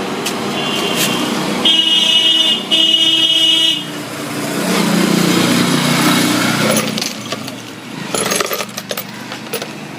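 Road traffic with a vehicle horn honking twice, a second-long blast each time, followed by the low rumble of a passing vehicle and a few clicks near the end.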